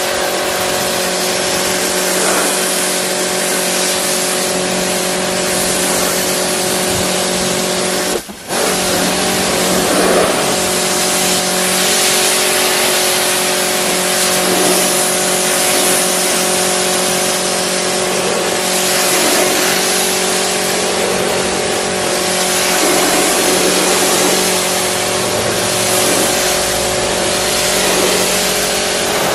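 Pressure washer spraying a jet of water onto a mud-caked car body to blast off thick dried mud: a steady hiss of spray over a steady hum. It cuts out briefly about eight seconds in.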